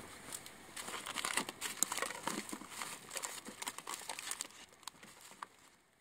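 Small wood fire in a SOTO ST-941 stainless-steel mini fire stand, crackling with many sharp pops over a faint hiss, fading out near the end.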